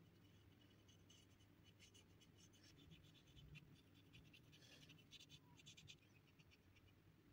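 Faint scratching of a watercolour brush stroking over rough watercolour paper, in short runs of strokes that stop about six seconds in, over a low steady hum.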